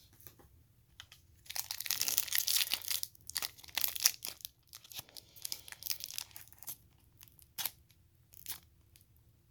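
Foil trading-card pack wrapper being torn open and crinkled: a dense burst of tearing and crackling, then scattered crinkles and a few light clicks as it is handled.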